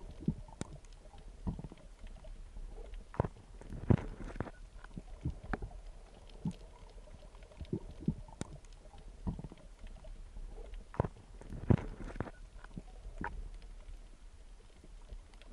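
Underwater sound picked up through a dive camera's housing: a low muffled rumble with irregular sharp clicks and knocks, roughly one a second.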